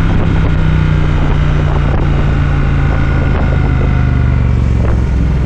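Motorcycle engine running steadily at cruising speed, heard from the rider's seat with wind and road noise.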